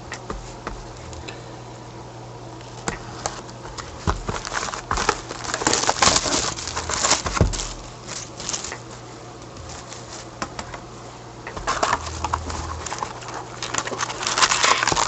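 Plastic shrink wrap and cardboard crinkling and crackling in irregular bursts as a sealed box of trading cards is unwrapped and opened, over a steady low hum.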